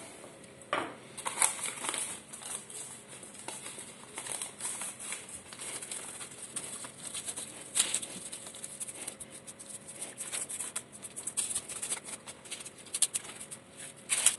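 Baking paper crinkling and rustling under hands that fold and twist the raw dough edges of an empanada to seal them: an irregular run of soft crackles and scratches with a few sharper ticks.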